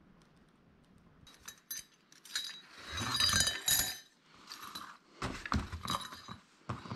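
Small metal shift-lever parts clinking and rattling against each other as they are picked up and handled, in two spells of clatter: one from about a second in, busiest around the middle, and another near the end.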